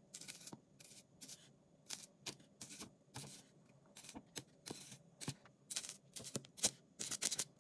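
Irregular crackling bursts of a small electric arc where a battery-fed graphite rod touches and is drawn along aluminium foil, burning through it.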